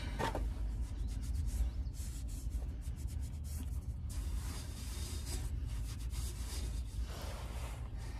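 Cloth rag rubbing and scuffing in irregular bursts as oily hands and then the oil filter canister are wiped clean, over a low steady rumble.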